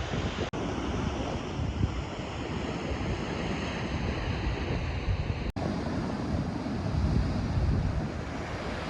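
Steady rush of a large waterfall close by, with wind buffeting the microphone in gusts. The sound cuts out for an instant twice.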